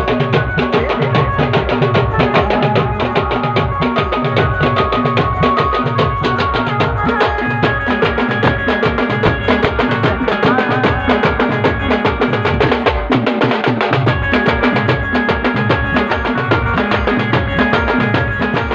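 A band playing timli dance music: a fast, driving drum beat with a melody line of held and wavering notes over it.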